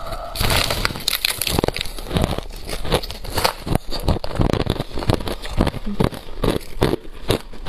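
Crushed ice being bitten and chewed right at a clip-on microphone: a dense run of crisp crunches, several a second, starting about half a second in.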